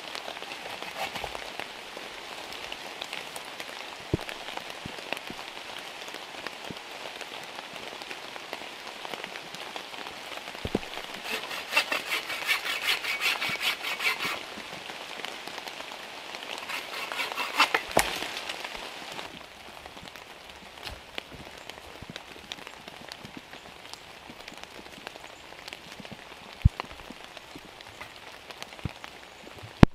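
Steady rain falling and pattering on surfaces, with scattered sharp individual drops. Twice, near the middle, the pattering turns denser and louder for a few seconds.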